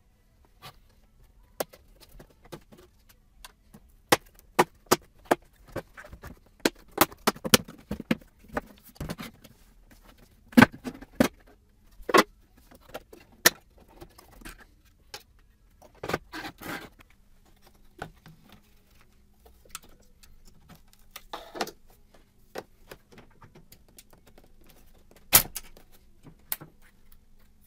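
Sharp plastic clicks, snaps and light clatter of a BMW E46 ZKW bi-xenon headlight housing being taken apart by hand, as clips and the bulb's connector are worked loose. The clicks come irregularly, with a few busier stretches of clatter, and one of the loudest snaps comes near the end.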